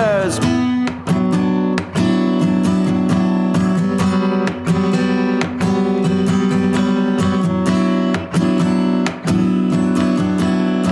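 Acoustic guitar strummed in a steady rhythm, chords ringing on between the strokes, with no singing after the last sung word fades in the first half-second.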